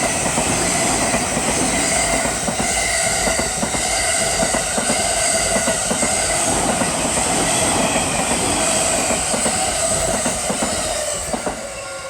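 Electric train running past at the station, its wheels squealing against the rails and clattering over the rail joints. The sound stays loud and steady, then begins to fade near the end as the train moves away.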